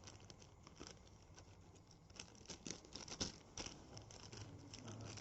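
Faint, scattered clicks and light rustling from small plastic kit containers being handled, several sharper clicks in the second half.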